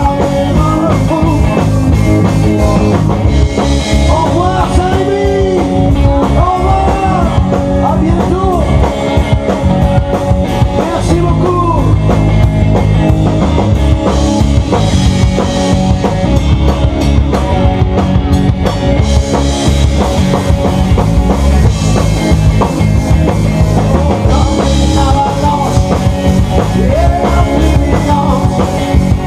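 Live rock band playing loudly: electric guitars, bass and drum kit, with a melody line that bends up and down in pitch over a steady beat.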